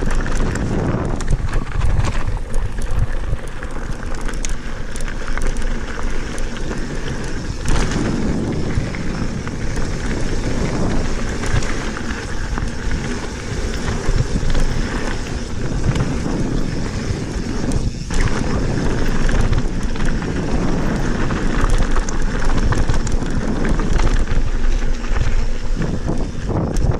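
Santa Cruz Bronson mountain bike descending a gravel trail: steady wind buffeting the chest-mounted camera's microphone, with tyres rolling over loose gravel and small stones and the bike rattling in frequent short clicks and knocks.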